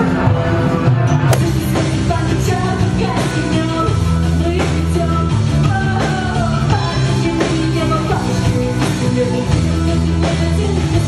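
Rock band with a woman singing lead over electric guitars and a drum kit. About a second in, the other music before it cuts over to the band.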